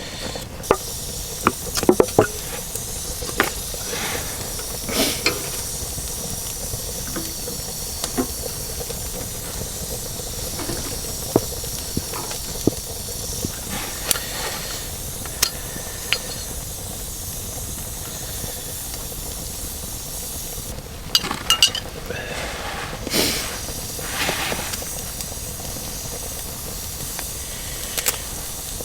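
Campfire burning: a steady hiss with scattered crackles and pops, with a cluster of louder pops about twenty-one to twenty-four seconds in.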